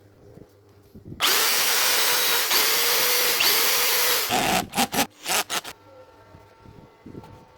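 A small power tool runs loudly for about three seconds with a steady motor whine, then is pulsed on and off in four or five short bursts.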